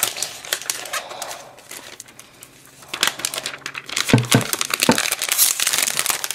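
Clear plastic shrink wrap being peeled off an iPad 2 and crinkling, busier and louder from about halfway in. A couple of dull knocks from handling come around two-thirds of the way through.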